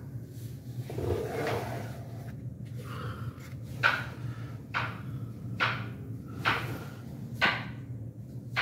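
Plastic rearing-rack drawers knocking as trays are handled: about six sharp knocks, roughly one a second, starting about four seconds in, over a steady low hum.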